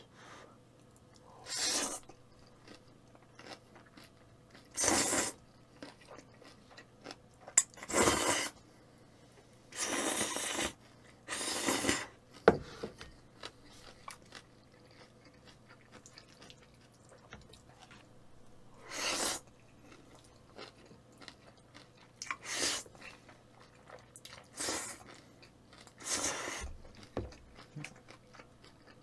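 Close-up mouth sounds of eating jjajang kalguksu noodles and fresh geotjeori kimchi: chewing and crunching, broken by about ten loud, short bursts of eating noise spread across the stretch.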